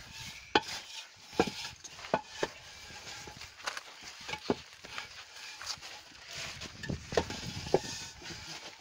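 Heavy masonry blocks being handled and set down on each other: a string of irregular knocks and scrapes, block on block, some with a short squeaky ring.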